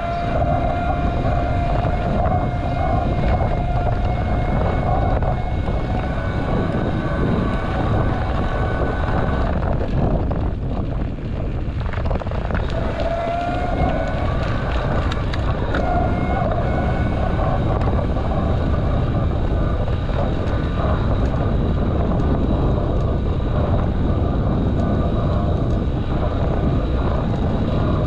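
Wind buffeting the microphone of a handlebar-mounted GoPro on a moving bicycle: a steady low rumble with scattered knocks from bumps in the road. A whining tone sounds over the first few seconds and comes back briefly about halfway through.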